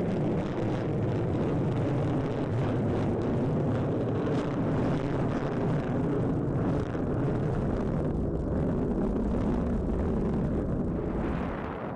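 An F-35A Lightning II's single Pratt & Whitney F135 afterburning turbofan running as the jet flies past, heard as a loud, steady jet rumble. The rumble eases off slightly near the end.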